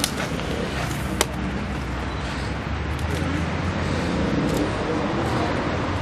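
Steady rumble of road traffic, with two sharp clicks in the first second or so.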